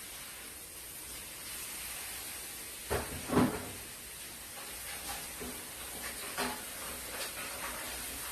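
Kitchen handling noise: two sharp knocks about three seconds in, then lighter clicks and taps, over a steady hiss.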